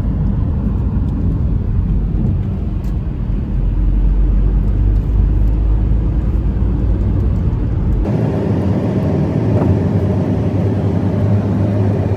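A car driving along a road: a steady low rumble of engine and road noise, its tone shifting abruptly about eight seconds in.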